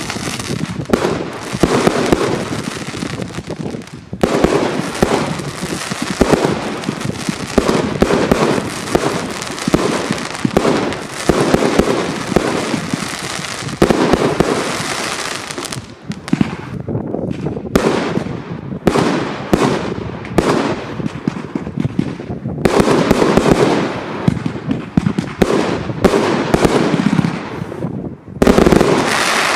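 Broekhoff 200-shot 30 mm (1.2-inch) assorted firework display box firing in rapid succession: a near-continuous stream of loud launch thumps and bursts, broken by a few short lulls.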